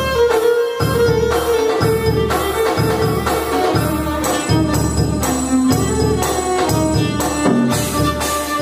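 Violin playing a klezmer melody over a drum kit keeping a steady beat with cymbals.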